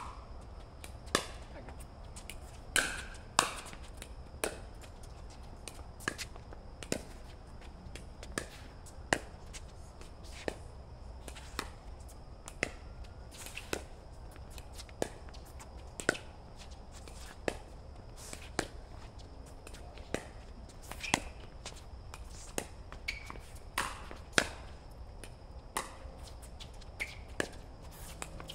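Pickleball paddles hitting a plastic pickleball back and forth in a rally: a string of sharp pops about once a second, some loud and some soft.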